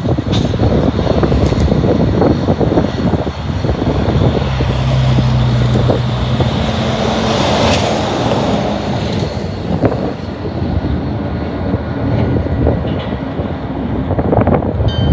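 Loud steady rumble of a passing train, with a diesel engine's hum showing for a couple of seconds in the middle and the noise swelling about halfway through.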